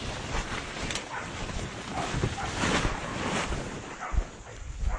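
Leaves and stems rustling and brushing as someone pushes through dense undergrowth, with animal calls in the brush.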